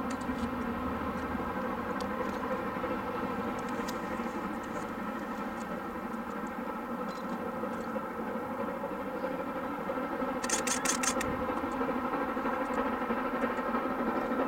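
Distant steam locomotive working hard as it approaches, heard as a steady drone. A brief burst of high clicking comes about ten and a half seconds in.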